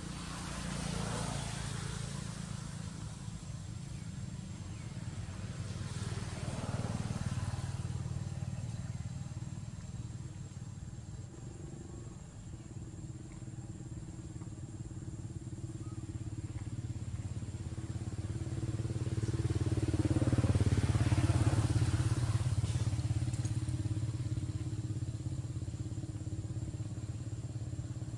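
Low engine rumble of passing motor traffic that swells and fades three times, loudest about two-thirds of the way through.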